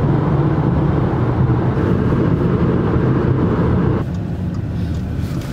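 Steady road and tyre noise inside a car's cabin at highway speed. About four seconds in it cuts suddenly to a quieter, steady in-car hum.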